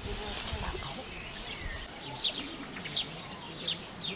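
A small songbird chirping, short high chirps repeated about every three-quarters of a second, starting about two seconds in.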